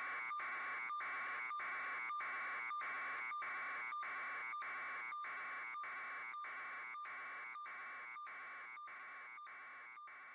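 Electronic buzzing that pulses about twice a second, each pulse the same, over a thin steady tone. It fades slowly toward the end.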